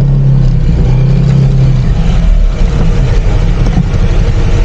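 Yamaha Aerox V2 scooter's single-cylinder engine running, with a steady low hum that is strongest in the first two seconds, over a rumble of wind on the microphone.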